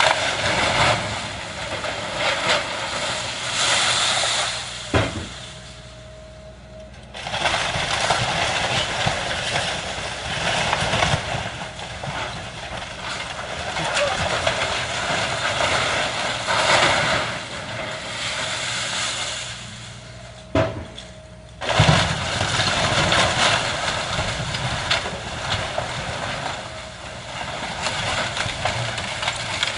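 Demolition excavator's engine running under load as it tears into a house, with crunching and cracking of breaking debris. There are sharp knocks about five seconds in and again around twenty seconds in, and the noise drops off briefly twice.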